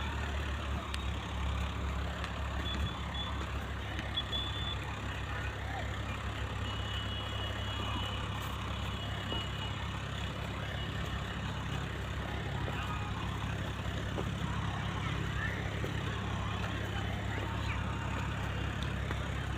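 A steady, low engine drone that runs without a break.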